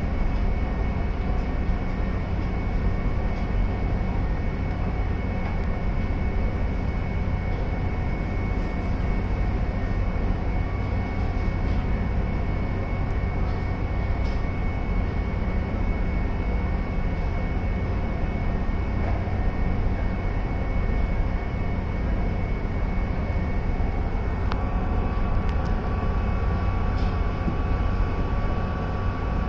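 Steady drone of a Hakone pirate-style sightseeing ship's engines heard on board while cruising, a deep hum with a thin steady whine over it. Near the end the hum shifts and a new steady tone comes in.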